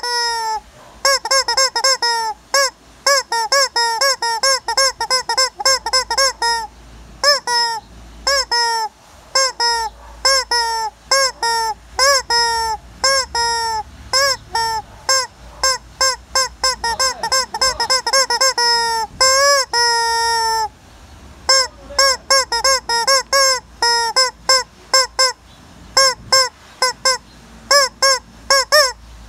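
A chicken calling loudly over and over in quick runs of short, arching squawks, about three a second, broken by short pauses. A couple of longer, drawn-out calls come about two-thirds of the way through.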